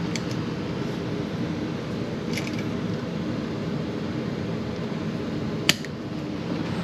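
Three sharp clicks from tools and wiring being handled, the loudest about six seconds in, over a steady low hum.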